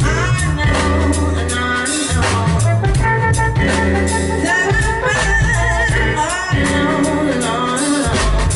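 Live jazz band: a woman sings into a microphone over keyboard, drum kit and a steady low bass line.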